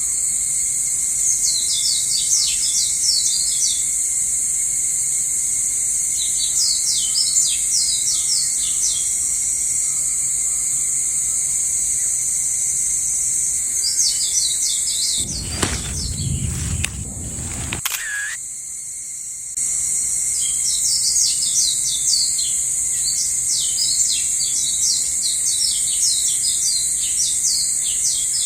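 Small songbirds chirping in quick repeated bouts over a steady high-pitched background drone. A little past the middle, a low rumble lasts about two seconds, followed by a brief dip in the sound.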